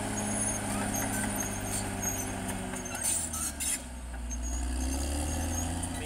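CAT D6R XL bulldozer's diesel engine running steadily as the dozer works across the cleared ground. The engine note drops about four seconds in and then climbs back. There are a few sharp knocks around three seconds in.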